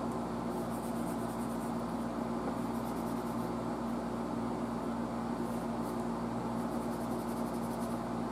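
Steel wool rubbing over a small metal ring, faint quick scratchy strokes that come and go, over a steady low hum.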